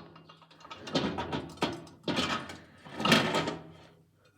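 Three loud bursts of clattering and scraping from things being handled, about a second, two seconds and three seconds in, over a faint low hum.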